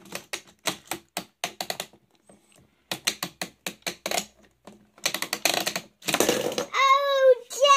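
Plastic clicking and rattling of a child's pop-up toy as its buttons are pressed: a quick irregular run of sharp clicks, turning to denser rattling about five seconds in. Near the end a child's voice sets up a loud falling whine.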